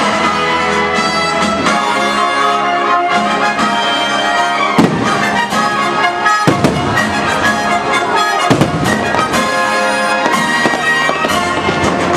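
Fireworks shells bursting over the show's music soundtrack. The music runs throughout as held tones, with a loud burst about five seconds in and another about six and a half seconds in.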